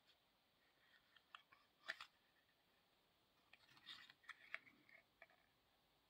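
Near silence with a few faint clicks and rustles of a small cardboard padlock box being handled in the fingers, the clearest about two seconds in and a short cluster around four seconds.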